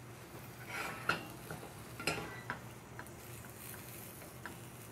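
Wooden spoon stirring and turning fresh spinach leaves in a stainless steel frying pan, with scattered knocks of the spoon against the pan, the loudest about a second and two seconds in.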